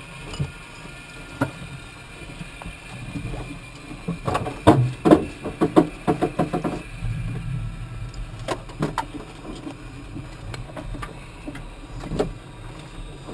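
Scattered clicks and knocks, with a dense burst of rattling and clattering about four to seven seconds in, from gear being handled in a parked jet's open cockpit. A steady hum runs underneath.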